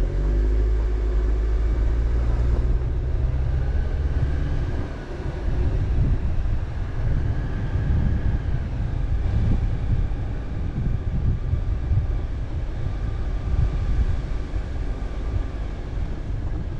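A vehicle driving on a dirt road: a continuous low rumble of engine and tyres that turns choppy and uneven about five seconds in.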